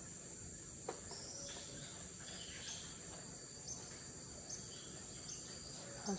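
Insects droning steadily at a high pitch, with a short chirp repeating about once a second and a single click just under a second in.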